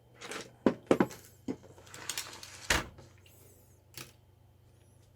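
A series of sharp clicks and knocks from tools and parts being handled on a workbench while a soldering iron is readied. The clicks are bunched in the first three seconds, with one more about four seconds in, over a faint steady hum.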